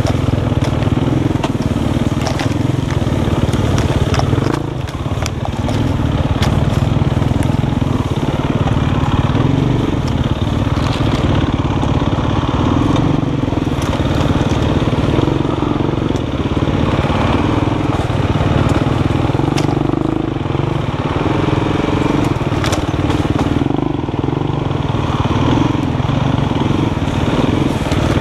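Dirt bike engine running steadily at low revs while branches and twigs crackle and snap against the bike as it pushes through dense brush.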